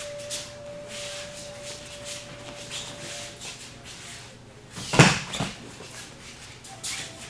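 Bare feet shuffling and cotton uniforms rustling on a padded mat, then about five seconds in a heavy thud as a body lands on the mat in an aikido breakfall, with a smaller thud just after. A faint steady tone hums underneath.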